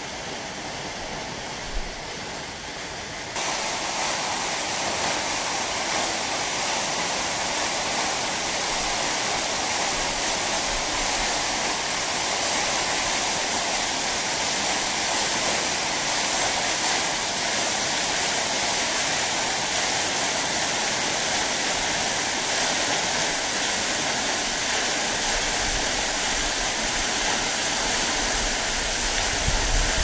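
Waterfall: a steady, dense rush of falling water. It jumps suddenly to a louder level about three seconds in, and some low rumble joins it near the end.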